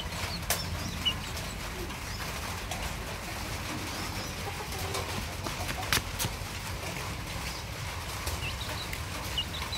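Faint, short bird chirps now and then over a steady low rumble, with two sharp clicks, one about half a second in and one about six seconds in.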